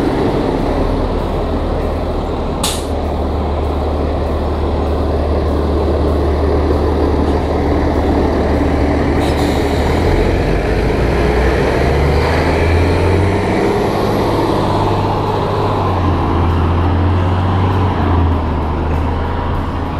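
Transit bus's diesel engine idling close by, a steady low rumble, with a short sharp hiss about two and a half seconds in and another about nine seconds in.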